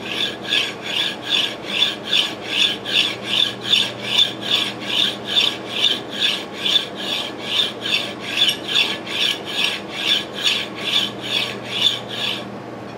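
A Maytag 92 engine's connecting rod being rubbed back and forth on a flat file to cut its face down by hand: an even rasping stroke about twice a second, stopping just before the end.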